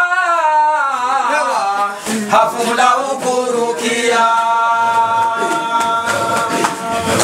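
A man chanting a dhikr unaccompanied. At first his voice wavers in an ornamented line, then from about four seconds in he holds one long steady note until near the end.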